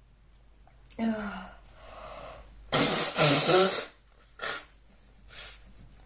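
A woman sneezing: a breathy, voiced build-up about a second in, then one loud "achoo" about three seconds in, followed by three short, sharp breaths.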